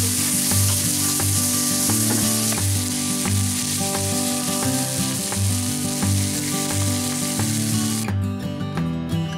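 Sliced onions sizzling loudly in oil on a hot Blackstone flat-top griddle, with a spatula stirring them. The sizzle drops away about 8 seconds in, leaving background music with a steady beat.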